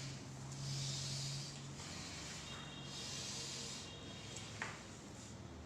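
A patient breathing long, slow, deep breaths in and out, each breath a soft hiss, to ride out pain during a shoulder stretch. A low steady hum runs underneath and stops about four seconds in.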